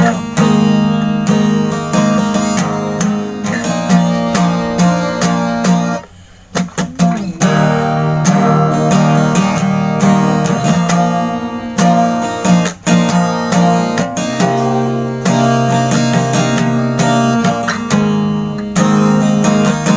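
Acoustic guitar being strummed in a steady rhythm, with a short break about six seconds in.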